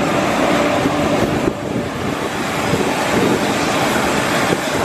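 Gusty wind rushing over the microphone, over a steady hum of a parked jet and ground equipment on the airport ramp.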